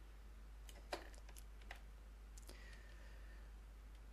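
A handful of sharp clicks from a computer mouse and keyboard against faint room tone, spread over the first two and a half seconds, the loudest about a second in.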